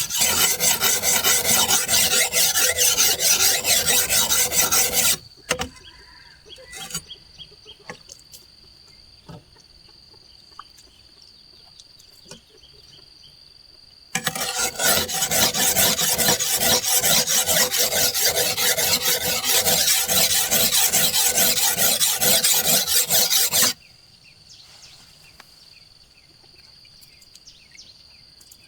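Fast, even rasping on wood in two long spells of several seconds each, starting and stopping abruptly, as when wood is being sawn or scraped during house building. In the quiet gap between them a steady high insect drone carries on.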